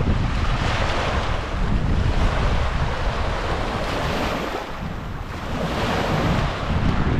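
Wind buffeting the microphone, a heavy rumble under a rushing noise that swells and fades every couple of seconds.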